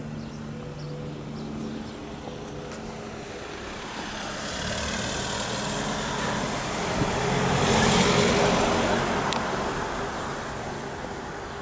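A car passing along the street: its tyre and engine noise builds over a few seconds, is loudest about eight seconds in, then fades away. A low steady hum lies under it throughout.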